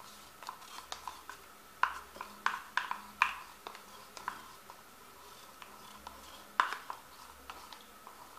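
A small plastic paint cup being handled and its rim wiped with the fingers: a scattered string of sharp clicks and taps, the loudest around two to three seconds in and again near seven seconds, over a faint steady hum.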